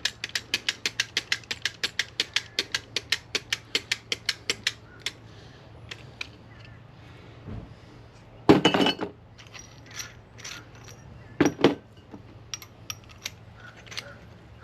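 A ratcheting hand tool clicks rapidly, about seven clicks a second, for nearly five seconds while it works the end of a copper refrigerant line round for swaging. It then gives a few scattered clicks, and two louder metallic scrapes come later on.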